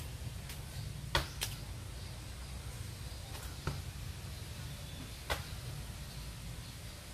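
Sharp thuds of a person doing burpees, hands and feet hitting the floor every couple of seconds, over a steady low hum.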